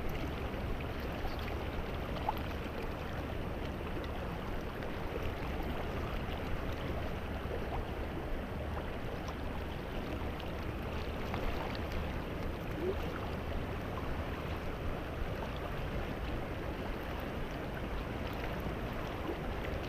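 Shallow, rocky stream water flowing and rippling close by, a steady even rush.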